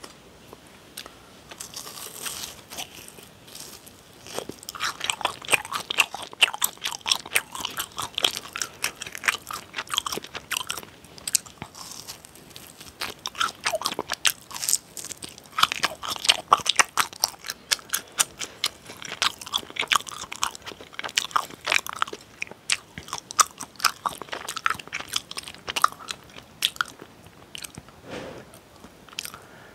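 Close-miked crunching and chewing of crispy deep-fried cheese balls: many quick, irregular crunches in dense clusters, with short pauses between bites.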